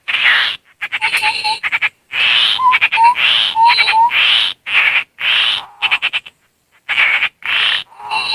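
Tepus landak babbler calling: a series of harsh, buzzy chattering bursts, about a dozen, some broken into rapid rattles, a few with short rising notes in them.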